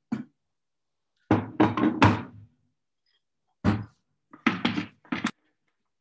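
Knocks and thunks of kitchen containers being handled and set down on a counter, in several short groups that each cut off sharply.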